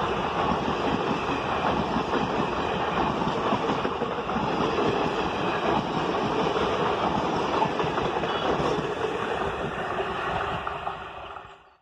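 Passenger coaches of an Indian Railways express train running past at speed, with a steady rushing and rattling of wheels on the rails. The noise fades out quickly in the last second or so as the last coach goes by.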